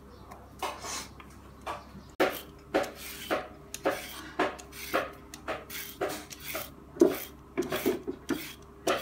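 Julienne peeler scraping down a carrot in quick repeated strokes, about two a second, shredding it into a plastic basket. Before that, a few light knife cuts through chives on a wooden chopping board.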